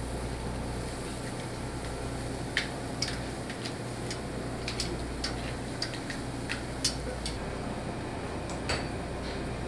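Metal tongs clinking against a grill grate as lobster tails are turned, a handful of sharp, scattered clicks over a steady low hum.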